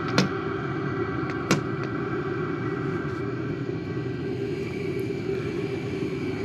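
Chinese diesel air heater running: a steady hum of its blower and burner, with two sharp clicks about a second and a quarter apart, typical of its fuel pump ticking.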